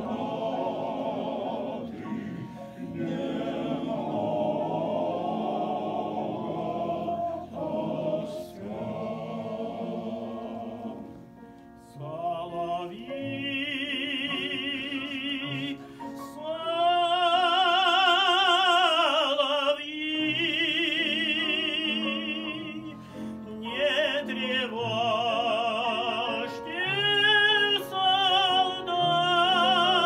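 Male veterans' choir singing. About a third of the way in, a solo male voice with a wide operatic vibrato takes the lead over the choir and becomes the loudest sound.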